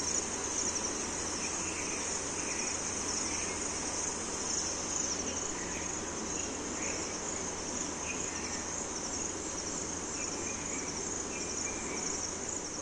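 Crickets chirping in a steady, high-pitched pulsing trill, over a low background hum, with faint short chirps at a lower pitch now and then.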